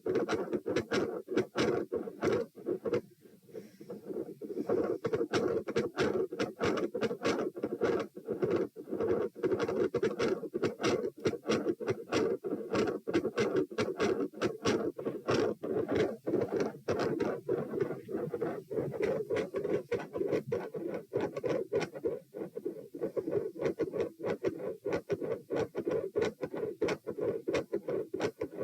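Human heartbeat heard through a stethoscope at the pulmonic area, back to a two-part lub-dub beat at a resting rate of about 90 beats a minute, the continuous machinery murmur of patent ductus arteriosus having dropped out. It comes through as a fast run of scratchy clicks over a steady hum.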